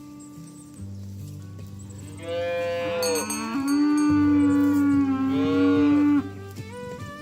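A cow mooing: one long, loud moo that starts a little over two seconds in, swells and holds for about four seconds before cutting off.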